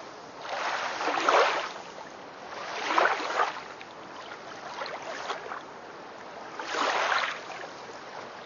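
Water rushing and splashing, swelling louder and easing off about every two seconds.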